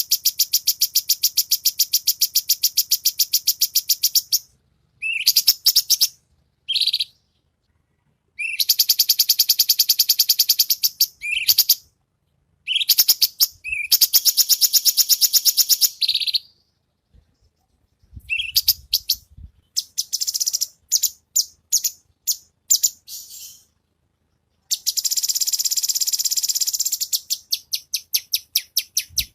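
Cucak cungkok (blue-winged leafbird) singing in long runs of very fast, tightly repeated high notes, each run lasting a few seconds, with short scattered phrases between the runs.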